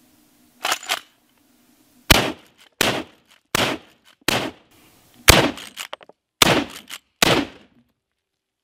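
Cimarron Model 71 lever-action rifle in .45-70 fired rapidly, a string of loud, sharp shots about three-quarters of a second apart, each with a short echo, the lever worked between shots.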